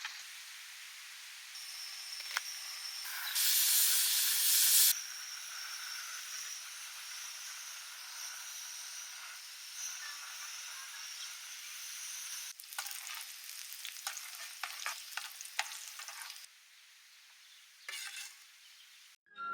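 Food sizzling as it fries in a pan, with a louder hissing burst a few seconds in and a run of sharp clicks and scrapes from a utensil stirring it later on.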